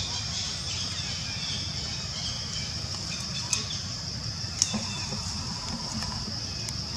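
Forest ambience: a steady high-pitched insect drone over a low rumble, with two sharp clicks around the middle.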